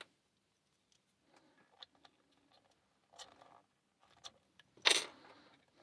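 A Master Lock 120 small padlock handled in the hands: scattered faint metal clicks and light rattles, with one louder, brief clack about five seconds in.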